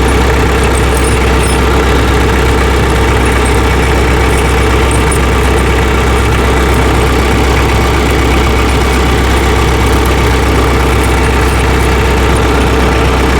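Tractor engine idling steadily, an even low hum with no change in speed.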